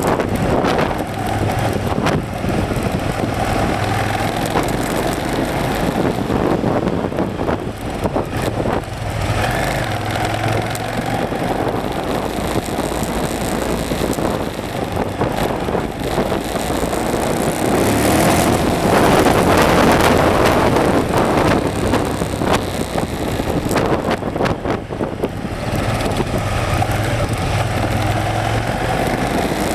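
KTM off-road motorcycle engine running as the bike rides over rough ground, with many short knocks and rattles. The engine rises and falls, and it gets louder for a few seconds past the middle.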